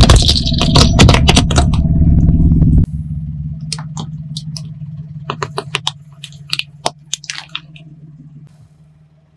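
Plastic Rubik's cube cracking and snapping under a car tyre: a rapid run of sharp cracks over the car's steady low engine hum for about the first three seconds. After that the hum drops and sparser cracks come every so often, thinning out and fading toward the end.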